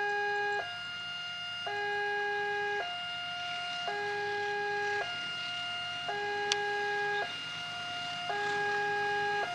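Railway level-crossing warning alarm sounding: an electronic two-tone signal that switches between a lower and a higher pitch about once a second, warning that a train is approaching. A single sharp click comes about six and a half seconds in.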